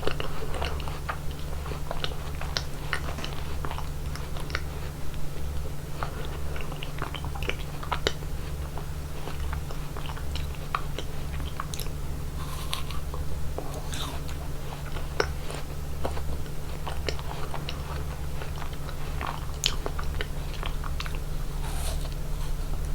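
Close-miked eating of chocolate ice cream: irregular bites and chewing with scattered crisp clicks and crunches, over a steady low hum.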